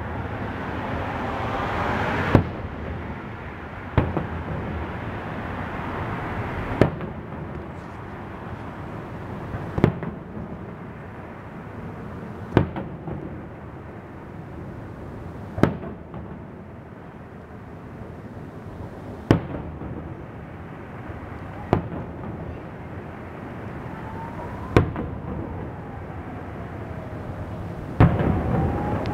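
Fireworks display: aerial shells bursting with sharp, echoing bangs every two to four seconds, about ten in all. A whistle rising and falling in pitch sounds near the end.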